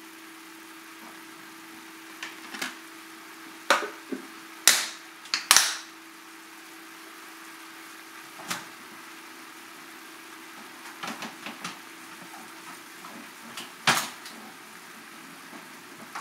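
Vegetables and frozen leftover rice frying in a hot enameled cast iron skillet: a faint steady sizzle with scattered sharp crackles and pops, and a few louder knocks about four to six seconds in and again near fourteen seconds.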